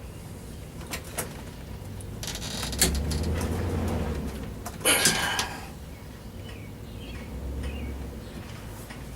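Work noises from hand-fitting parts on an AR-15 upper receiver: two light clicks, then a longer scraping rustle, and a louder short clatter about five seconds in.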